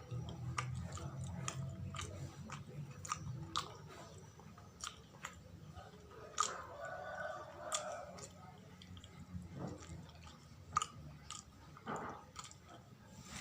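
Close-up mouth sounds of chewing sawella, a sticky cake of glutinous rice, coconut and palm sugar: wet smacks and many irregular short clicks.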